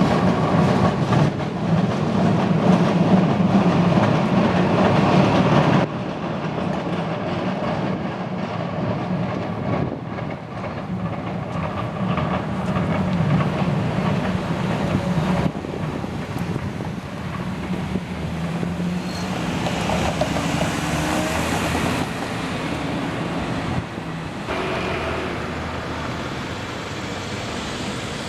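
Heritage streetcar running along the rails: a steady low rumble with wheel-on-rail noise, which changes abruptly three times.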